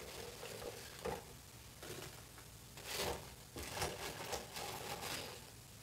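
Fries being stirred with tongs in a deep fryer's raised wire basket: quiet rustling and light metal clinks, in a few short bursts about a second in, around three seconds in and again just after.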